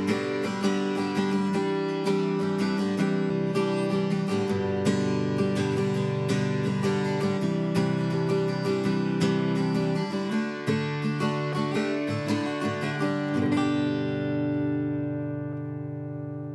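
Iskra Samara Grand Auditorium acoustic guitar played with a pick: a run of quick strummed and picked strokes, then a final chord left to ring and fade over the last few seconds.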